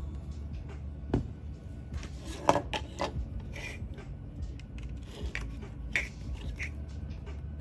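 Objects being handled: irregular clicks and knocks with some rubbing, the sharpest about two and a half seconds in, over a low steady hum.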